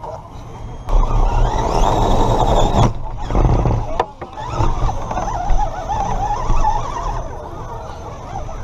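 Electric motor and gear drivetrain of a Redcat Gen7 Pro RC rock crawler whining as it drives, heard from a camera mounted on the truck itself. The whine rises in pitch about a second in, drops off briefly near the three-second mark, then picks up again.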